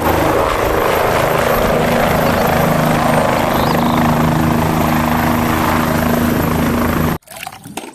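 Light helicopter hovering just above the ground, its rotor and engine running in a steady, loud, even drone. The sound cuts off abruptly about seven seconds in.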